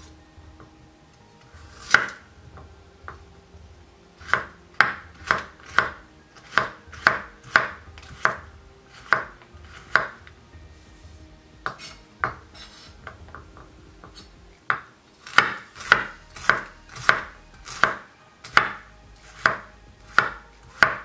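Kitchen knife chopping a broccoli stem on a wooden cutting board: a run of sharp knocks, roughly two a second, pausing twice.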